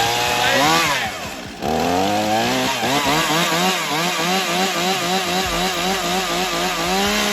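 Two-stroke chainsaw engine running and being revved again and again, its pitch rising and falling about twice a second, with a brief drop to a lower note about a second and a half in.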